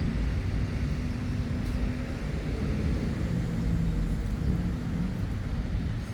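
Low, steady rumble of vehicle traffic, with a faint engine hum.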